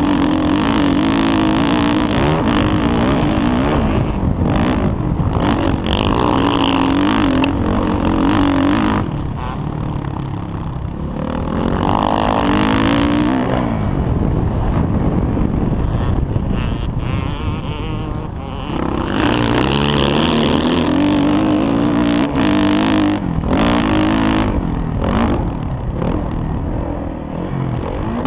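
Motocross dirt bike engine revving hard under load, its pitch climbing and falling with throttle and gear changes, heard from the rider's helmet. The throttle eases off twice, about ten seconds in and again around eighteen seconds, before it revs back up.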